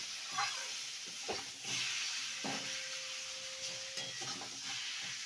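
Metal spatula stirring and mashing boiled taro in a steel kadai, scraping against the pan several times, over a steady sizzle of frying.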